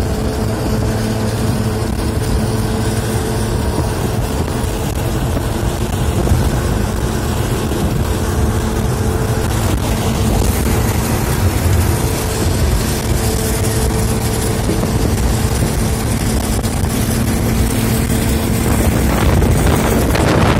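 A bus running at road speed, heard from its window: a steady drone of engine and tyre noise with a constant hum, and rushing wind that grows louder near the end.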